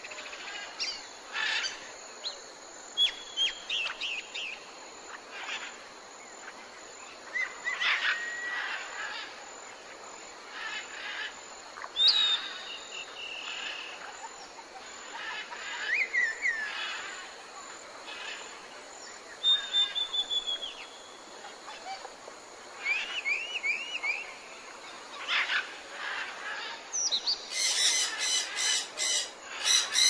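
Mixed wild birdsong: assorted short chirps, whistles and trilled calls from several birds, with a quick run of loud notes near the end.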